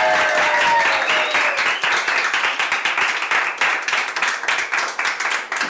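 A small group of people applauding by hand, dense clapping that goes on throughout, with voices calling out over it during the first second or so.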